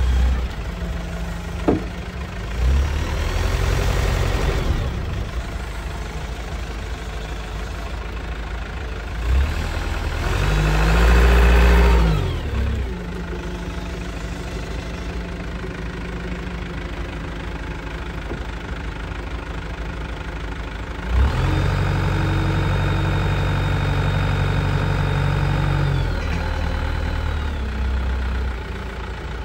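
Kalmar DC 4-500 diesel forklift engine idling, revving up and back down twice. Near the end it holds higher revs for about five seconds with a steady high whine from the hydraulics as the mast is lifted.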